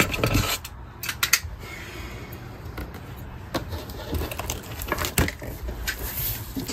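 Metal pliers and a plastic box cutter clinking as they are picked up off a cardboard carton, followed by cardboard scraping and knocking as the top of the large box is worked open. The sound is a run of sharp clicks and knocks, with a stretch of scraping about two seconds in.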